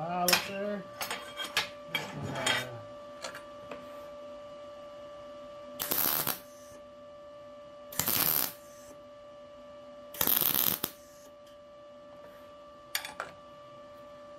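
MIG welder laying three short tack welds, each a noisy burst of under a second, about two seconds apart. Before them, steel pieces clink and rattle as they are handled, and a few small clicks follow near the end over a steady faint hum.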